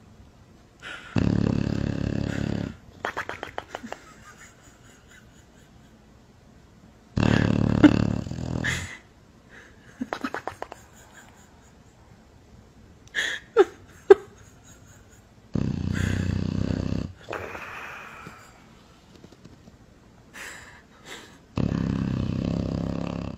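English bulldog snoring in its sleep: four long, loud snores about six or seven seconds apart, with quieter rattling breaths and a few short squeaky snorts in between.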